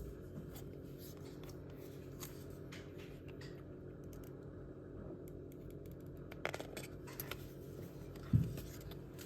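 Small clicks and scratching from a new phone and its packaging being handled, with a soft thump about eight seconds in, over a steady low hum.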